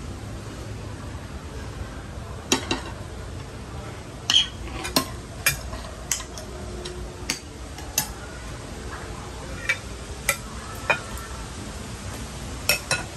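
Eating utensils clinking against bowls and dishes as a meal is served and eaten: about a dozen sharp, irregular clinks over a steady low background.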